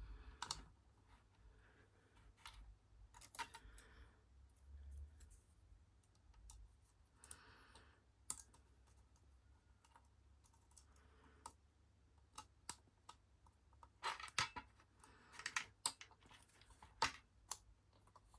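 Light metallic clicks and scrapes of a lock pick and tension wrench working inside a small padlock. The taps are scattered at first and come thicker near the end.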